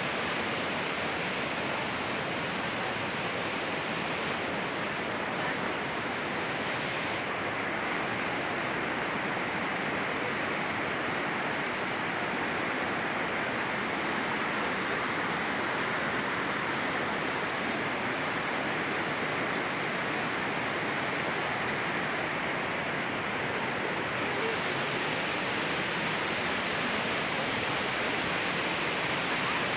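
Small waterfall's water rushing in a steady, even hiss.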